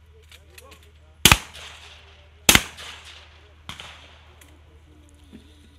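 Two loud shotgun shots about a second apart, fired at clay targets in trench (fosse) trap shooting, each with a short echoing tail. A fainter shot follows about a second later.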